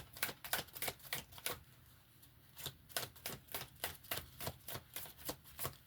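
Deck of oracle cards being shuffled by hand: a rapid run of crisp card clicks and slaps, about five a second, with a short break about two seconds in before the shuffling resumes.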